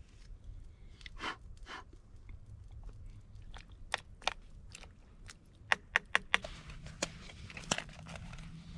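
Close handling noises: two soft rustles about a second in, then a run of sharp, crunchy clicks and knocks that thicken toward the end.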